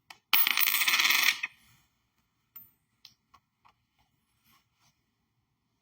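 A coin rattling loudly against a hard surface for about a second, followed by a few scattered light clicks and taps of coins being handled.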